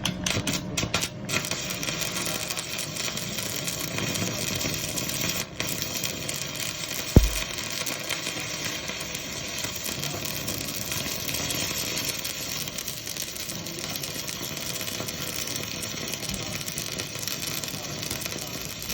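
Stick-welding arc from a 400-amp welding machine burning an 8-gauge electrode rod: a steady, dense crackling sizzle that runs unbroken. There is one short low thump about seven seconds in.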